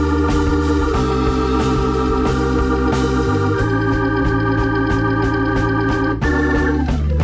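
Background music: an organ holding sustained chords that change a few times.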